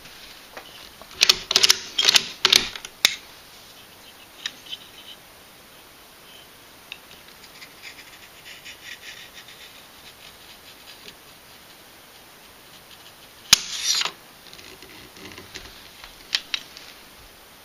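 Mosin-Nagant rifle being worked by hand for a dry-fire trigger-pull test with a mechanical trigger gauge: a quick flurry of metallic clicks and clacks from the bolt and action about one to three seconds in, a louder sharp clack with a short rattle about thirteen and a half seconds in, and a couple of light clicks near the end.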